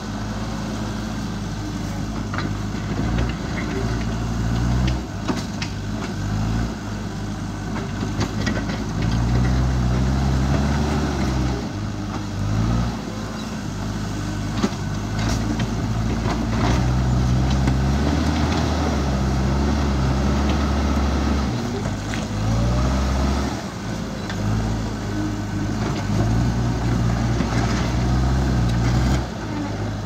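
JCB 3DX backhoe loader's diesel engine running and revving up and down again and again as the machine drives and pushes dirt with its front bucket, with a few sharp knocks from stones or the bucket.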